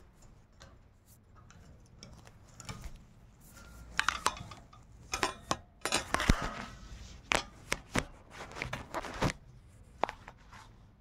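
Rose-ringed parakeet biting and crunching a green chilli with its beak: an uneven run of sharp clicks and crunches, sparse at first and busiest from about four to nine seconds in.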